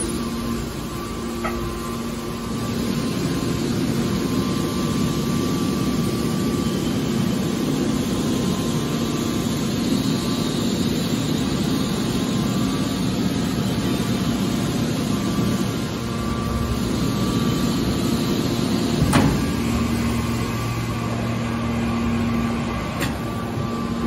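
Hydraulic metal baler running: a steady hum and whir from its hydraulic pump and motor, with one sharp clank about three-quarters of the way through.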